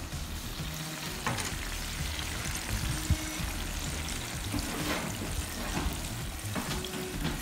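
Hot fat and juices sizzling in a roasting pan around a freshly roasted chicken, a steady hiss with a few pops. Soft background music plays underneath.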